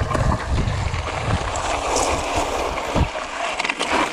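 Yeti SB6 mountain bike riding over rough granite rock: tyres rolling on rock and the bike rattling, with wind buffeting the microphone. The low rumble drops off about three seconds in.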